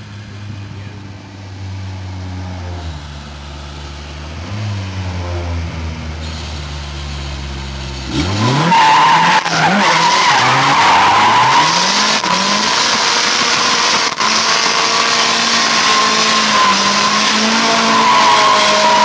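Nissan Silvia S14 drift car's engine running and drawing closer, then about eight seconds in it revs hard and the rear tyres break loose into a loud, sustained tyre screech as the revs rise and fall: a burnout to warm the tyres.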